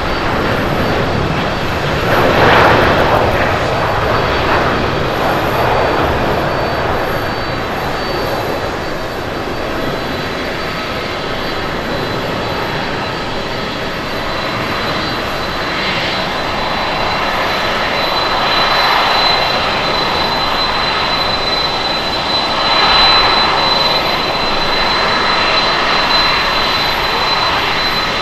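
Jet engines of an Air China Airbus A330-300 at takeoff thrust: a loud, steady roar as it rolls down the runway and climbs away, swelling about two seconds in and again near the end. A thin high whine joins in about halfway through.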